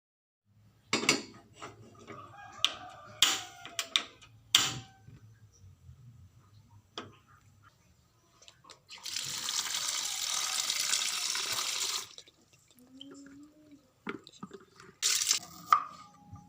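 Water running from a tap for about three seconds, with scattered knocks and clatter of things being handled before and after.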